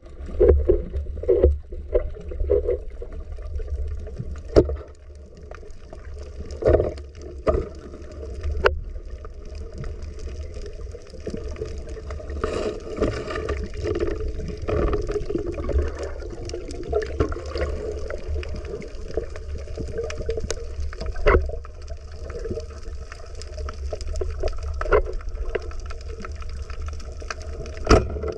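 Underwater sound picked up by a camera submerged in the sea: a steady low rumble of water movement, with scattered sharp clicks and knocks, the loudest a few seconds in and near the end.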